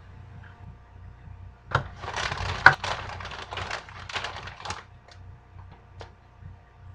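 Plastic bag crinkling and rustling for about three seconds, a dense run of crackles with one sharp snap as the loudest moment, then a couple of light ticks as it is set down.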